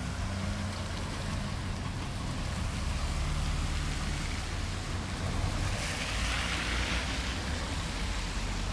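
Steady low rumble and hiss of a C11 steam-locomotive train running past, with the hiss swelling briefly about six seconds in.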